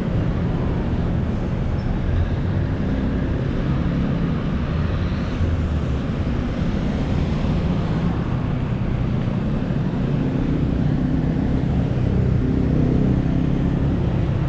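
Street traffic: motor vehicle engines running steadily with a low engine hum.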